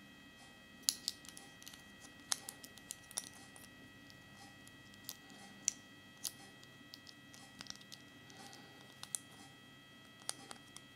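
Small hard-plastic Kinder Surprise toy pieces being handled and pushed together, giving irregular sharp clicks and taps, about a dozen spread unevenly. A faint steady hum lies underneath.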